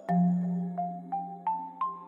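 Background music: a gentle melody of struck, ringing notes over a low bass note, the tune stepping upward through the second half.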